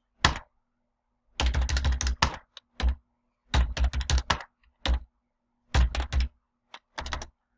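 Typing on a computer keyboard: several quick runs of keystrokes with short pauses between them, as numbers are keyed in.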